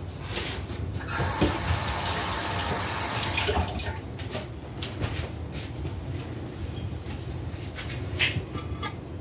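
Water running from a kitchen tap for about two and a half seconds, starting about a second in, then stopping suddenly; a few light knocks follow.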